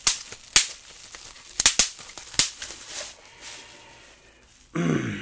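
Plastic bubble wrap being handled, with about five sharp pops as bubbles burst in the first half, then quieter rustling. Near the end comes a short vocal sound falling in pitch.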